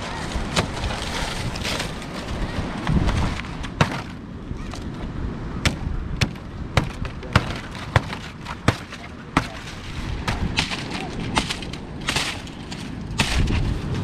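A knife cutting and splitting a green fan-palm frond: a run of sharp cracks and snaps from the fibrous stalk and leaf, about one or two a second from about four seconds in. Wind buffets the microphone in the first few seconds.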